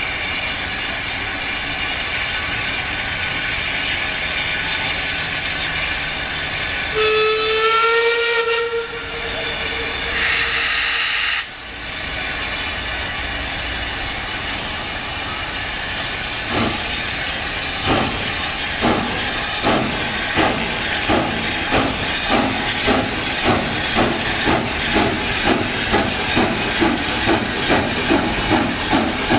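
Hunslet Austerity 0-6-0ST saddle-tank steam locomotive: a steady hiss of steam, then one whistle blast about seven seconds in, followed by a short, louder rush of hiss. From about sixteen seconds in it starts away, its exhaust beats slow at first and quickening to about two a second.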